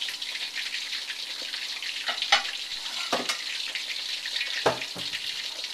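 Shrimp coated in cornstarch-and-flour batter deep-frying in a wok of hot oil: a steady sizzle of bubbling oil, thick with crackling, and a few louder pops.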